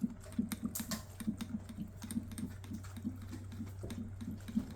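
Maltipoo puppy lapping water with its tongue, quick and rhythmic at about three laps a second, with small wet clicks.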